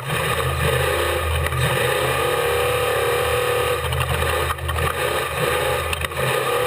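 Off-road race vehicle's engine running at speed, its pitch wavering up and down, under a steady rushing noise with occasional sharp knocks and rattles.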